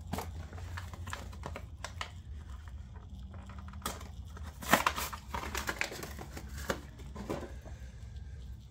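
Irregular clicks, taps and knocks of hand tools and small metal parts being handled during ATV oil-change work, with one louder knock a little under halfway through. A steady low hum runs underneath.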